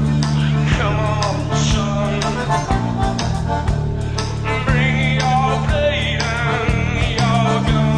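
Music: a wavering melody over steady, sustained low notes.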